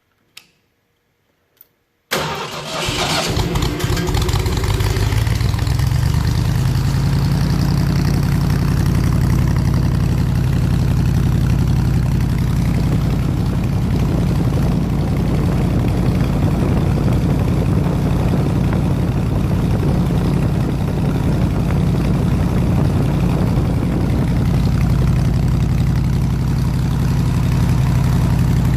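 A warm 302 V8 engine driving an air compressor starts about two seconds in, catching at once. It settles into a steady idle.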